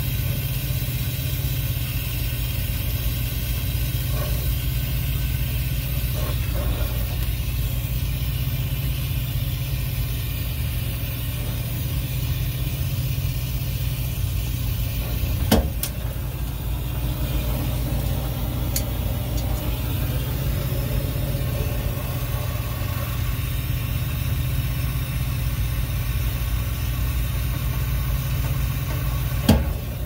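Brazing torch flame burning steadily with a constant roar while it heats a copper joint to braze in a replacement TXV. Two sharp metallic clicks about halfway through and near the end.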